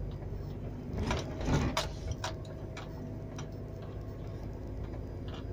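Inside the cab of a moving articulated lorry: a steady low engine and road drone, with a few scattered clicks and rattles.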